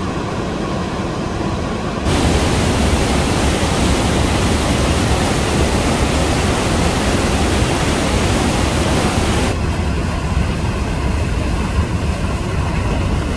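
Niagara Falls' water roaring up close, a loud, steady rush of noise. It gets brighter and louder about two seconds in and a little duller near ten seconds.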